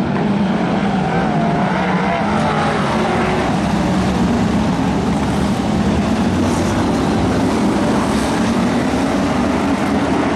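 A pack of BriSCA F1 stock cars racing round the oval, their V8 engines running together in a loud, steady blend.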